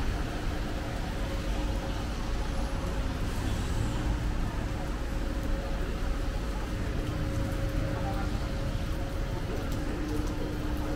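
Steady city road-traffic rumble with a faint steady hum running through it.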